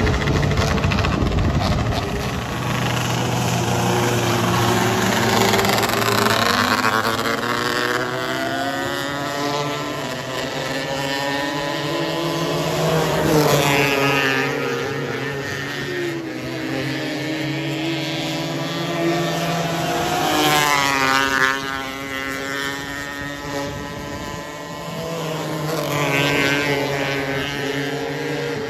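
270 micro sprint race cars running laps on a dirt oval, engines wound up high and rising and falling in pitch. The cars sweep loudly past about every seven seconds.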